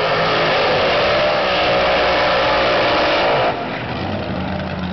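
Supercharged front-engine dragster's engine at full throttle, loud and hard-edged, cut off suddenly about three and a half seconds in, after which the engine keeps running lower and quieter.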